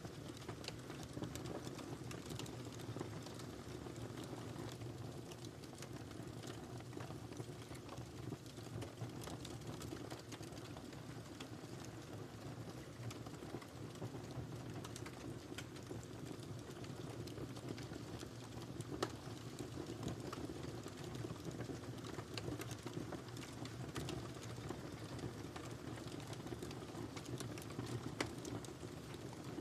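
Wood fire crackling in a fireplace: a steady low rumble and hiss with frequent small crackles, and a sharper pop about two-thirds of the way through and another near the end.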